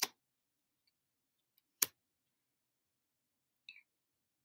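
Two sharp clicks about two seconds apart as paper flash cards are handled and swapped, with a faint brief rustle near the end and a quiet room between.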